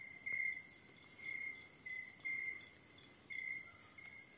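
Night insects: a short chirp repeating about twice a second over a steady high-pitched drone.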